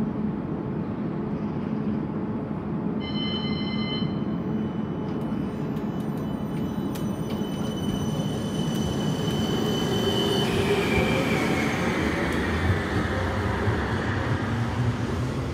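West Midlands Metro CAF Urbos 3 tram passing close by, its wheels rumbling on the rails. A high electric whine from the traction equipment holds steady for several seconds, with a few clicks from the wheels. About ten seconds in the whine gives way to a tone that slowly falls in pitch.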